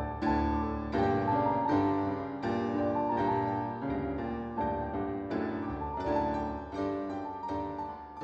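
Slow background piano music, a note or chord struck about every three quarters of a second over low sustained bass notes.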